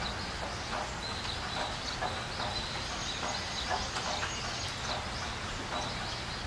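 Outdoor ambience of domestic fowl and birds calling: many short calls repeating every half second or so, with thin high whistling notes over a steady background noise.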